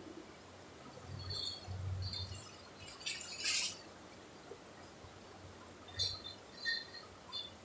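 Quiet room with a few faint, short high chirps, a couple about a second in and a few more near the end, and a brief soft hiss about three seconds in.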